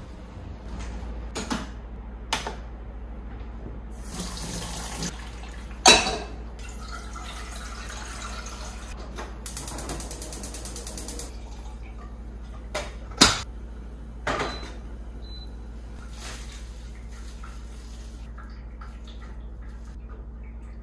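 Kitchen water sounds: water running and being poured from a filter pitcher into a cooking pot, with several sharp knocks of pot and utensils, two of them loud.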